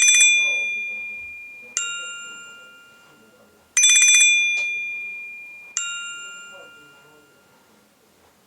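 Nokia C2-01 mobile phone playing a bell-like ringtone. A higher chime note is followed by a lower one, and the pair is played twice. Each note rings out and fades over about two seconds, the higher note opening with a rapid flutter.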